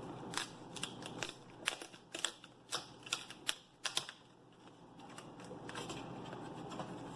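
Plastic snap-on screen bezel of an HP laptop clicking and tapping as it is lifted off the lid and handled: about a dozen sharp clicks over the first four seconds, then quieter.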